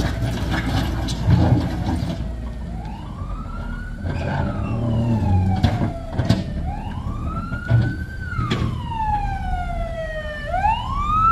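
A siren wails, its pitch rising and falling about every two to three seconds. Underneath, a JCB backhoe loader's diesel engine runs steadily, and there are a few sharp knocks.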